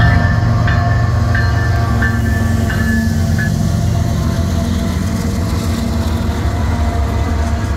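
Two diesel freight locomotives, a Norfolk Southern EMD SD70ACe in Southern heritage paint leading a GE AC4400CW, pass at close range with a loud, steady, deep engine drone. A bell dings about every two-thirds of a second until about three and a half seconds in.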